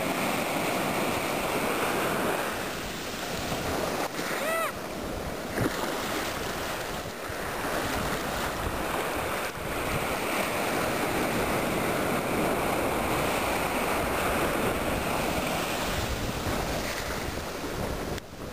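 Ocean surf breaking and washing up the beach in swells that rise and ease over several seconds, with wind buffeting the microphone. A brief high squeak comes about four and a half seconds in.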